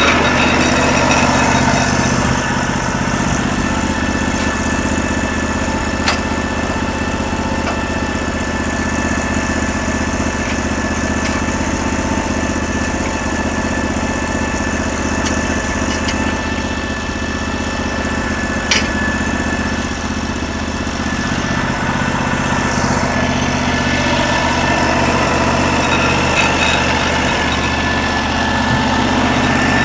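Norwood LM29 portable band sawmill's 16 hp gas engine running steadily, with a couple of sharp ticks along the way.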